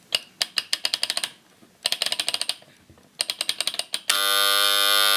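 Rapid mechanical clicking from a Copal Model 227 flip clock in three short bursts, the flip-clock mechanism being wound forward. About four seconds in, the clock's electric alarm buzzer starts a loud, steady buzz. The alarm is going off a little before the set time, which is typical of these old clocks' imprecise alarm setting.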